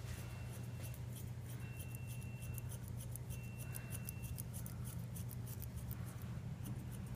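Thinning shears snipping through a cocker spaniel's neck coat: a quick, even run of light snips, several a second, over a steady low hum.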